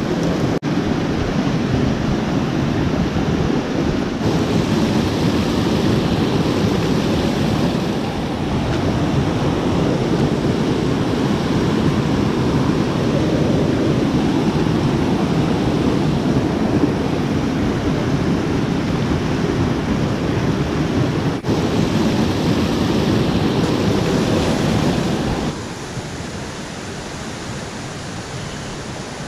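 Steady rush of water pouring over a small rocky cascade and rapids. Near the end it drops to a softer, steady hiss.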